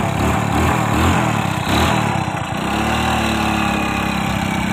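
Hero Honda Splendor Plus motorcycle's single-cylinder four-stroke engine running while under way, its pitch rising and falling, heard from on the moving bike over a steady rush of wind noise.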